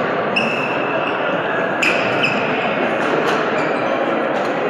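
Badminton rally in a sports hall: several short, high squeaks of court shoes on the floor and a few sharp racket strikes on the shuttlecock, over a steady hum of crowd chatter that echoes through the hall.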